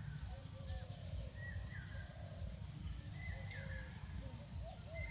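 Several birds chirping and whistling in short, repeated calls at different pitches, over a steady low rumble.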